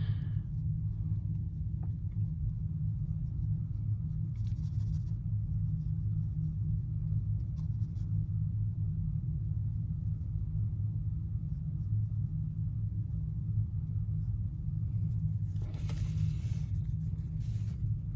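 Steady low hum underneath, with soft scratchy brush sounds: a water brush stroking wet paint on paper briefly about four seconds in, then scrubbing a pan of watercolour paint for about two seconds near the end.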